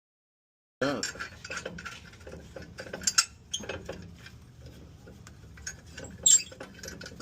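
Metal tools clinking and clattering during suspension work, a string of small clicks with two louder clanks about three and six seconds in.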